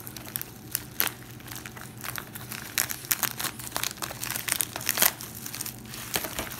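White poly bubble mailer being torn open and pulled apart by hand: irregular crinkling and crackling of the plastic film, thickest and loudest about halfway through.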